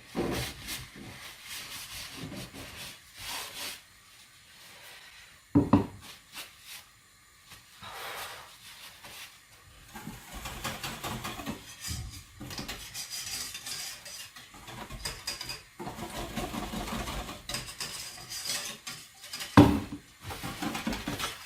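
Wire whisk scraping round a bowl, beating the advocaat's egg-yolk and brandy mixture, the strokes settling into a quick, steady rhythm about halfway through. Two sharp knocks, one about five seconds in and one near the end.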